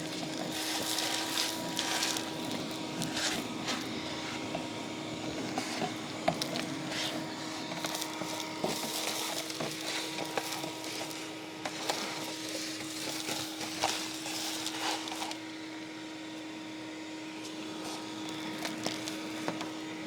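Vacuum cleaner running with a steady hum, sucking up dirt and debris that clicks and rattles through the nozzle and hose. The rattling thins out about fifteen seconds in while the motor keeps running.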